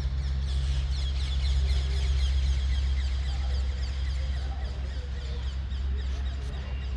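Many small birds chirping together in a dense chorus of quick high chirps, thickest in the first few seconds and thinning after, over a steady low rumble.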